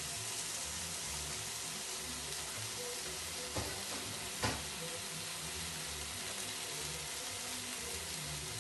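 Two oiled, salted rump steaks searing on their first side in a hot, dry grill pan, with a steady sizzle. Two short clicks come about three and a half and four and a half seconds in.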